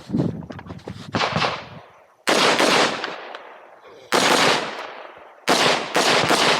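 Semi-automatic competition rifle with a muzzle brake firing a string of sharp shots. Some come in quick pairs and others one to two seconds apart, each followed by a long rolling echo.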